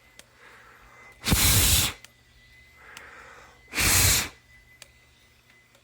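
Two hard breaths blown onto a heat detector to cool it so that it resets, each lasting about half a second, the second coming about two and a half seconds after the first.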